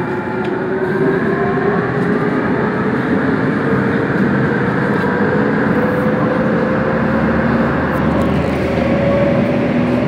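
Korail Class 351000 electric multiple unit running in a tunnel: a steady loud rumble of wheels on rail, with a motor whine rising slowly in pitch as the train gathers speed. The low rumble deepens near the end.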